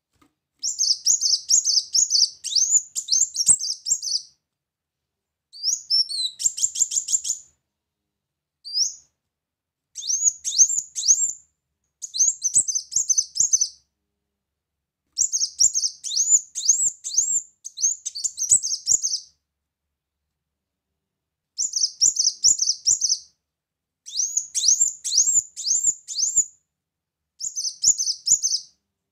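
Caged ruby-cheeked sunbird singing: rapid, high, squeaky chirps run together in bursts of one to three seconds, with short pauses between bursts.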